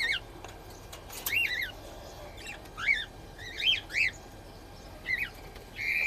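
Cockatiels calling: a loose string of short chirps, each rising and then falling in pitch, some coming in quick pairs.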